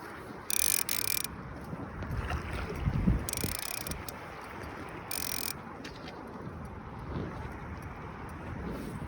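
Creek water rushing steadily, the stream running high, with wind buffeting the microphone in low rumbling gusts, strongest about three seconds in. Three brief high hissing bursts cut in and out about half a second, three and a half and five seconds in.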